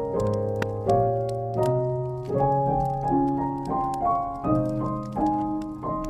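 Slow, gentle solo piano, a new note or chord about every three quarters of a second, over the irregular small crackles and pops of a burning wood fire.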